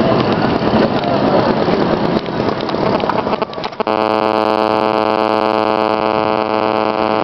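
Busy outdoor street noise, then a little past halfway a steady, unchanging hum with many even overtones cuts in abruptly and holds.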